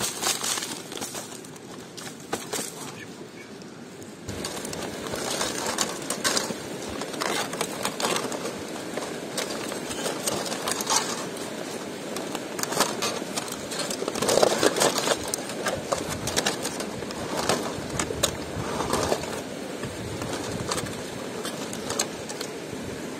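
Aluminium foil crinkling and crackling as a foil-wrapped roasted leg of lamb is lifted and unwrapped, in many short sharp crackles. From about four seconds in, a steady rushing noise lies beneath them.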